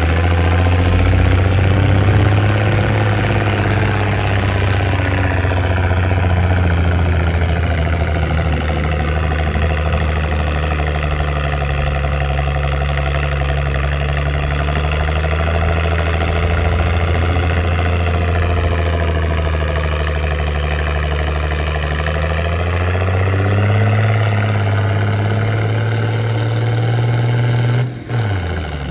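Large engine of a heavy ex-military vehicle running steadily at a fast idle. Its pitch sags slightly partway through, rises a little near the end, then breaks off suddenly.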